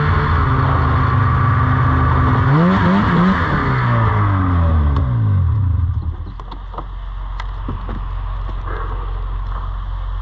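Polaris RMK 700 snowmobile's two-stroke twin running hard, its pitch swinging up and down, then dropping back to a low steady idle about six seconds in, with a few light clicks afterwards.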